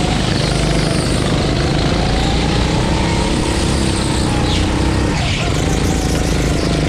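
Go-kart engine running hard at race pace, its pitch rising and falling. About five seconds in the pitch dips sharply, as when the throttle is lifted for a corner, then climbs again.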